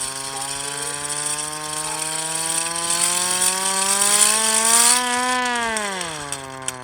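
Hand-crank air raid siren turned the wrong way round, giving a low wail with a rough hiss over it. The pitch rises slowly for about five seconds, then falls away near the end as the rotor winds down.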